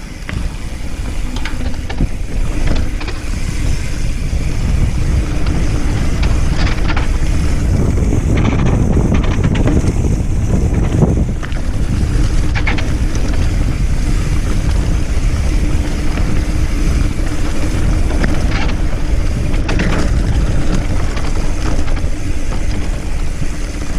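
Mountain bike descending a dirt trail: wind rushing over the microphone and tyres rolling over rough ground, with scattered knocks and rattles from the bike. The noise builds over the first couple of seconds as the bike picks up speed, then holds steady.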